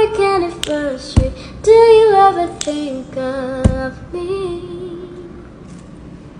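A pop song with a woman's voice singing long wordless notes that slide and step downward, fading toward the end. A few sharp clicks are heard among the notes.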